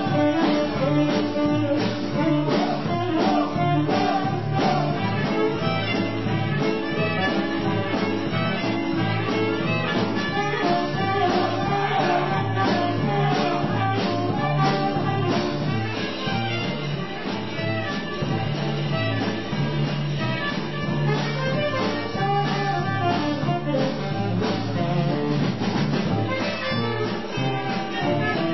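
Small jazz band playing with a steady beat: trumpet, tenor saxophone and clarinet over piano, double bass and drum kit.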